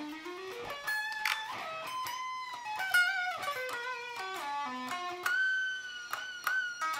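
Electric guitar played solo, one note at a time: a quick rising run in the first second, then a melodic lead line with held notes, some with vibrato.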